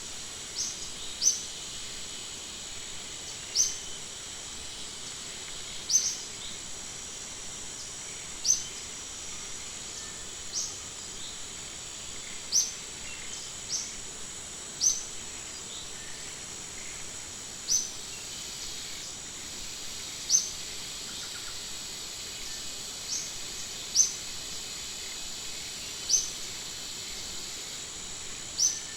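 Outdoor nature ambience: a steady high insect drone, with a short high chirp repeating roughly every two seconds as the loudest sound.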